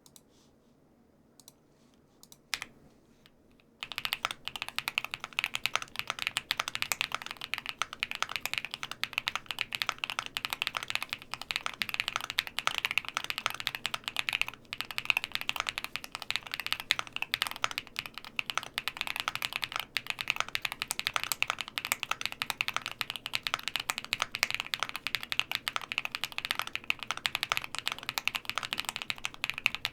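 Fast typing on a QwertyKeys QK75N mechanical keyboard with MMD Princess linear switches, an aluminium plate and full foam dampening. A few single key presses come first, then continuous rapid typing from about four seconds in.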